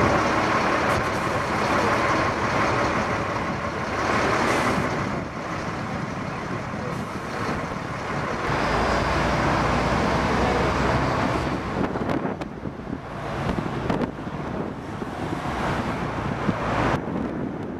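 Street traffic: road vehicles passing, with a heavier vehicle's low rumble around the middle.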